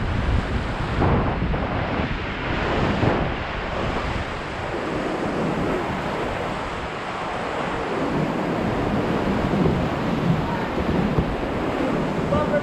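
Whitewater rapid rushing and splashing around an inflatable cataraft, heard from close to the water. There is heavier low rumble on the microphone in the first few seconds.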